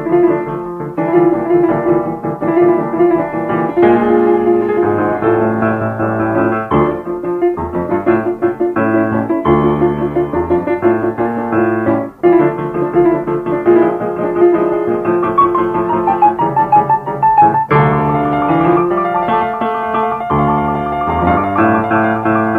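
Piano music playing continuously.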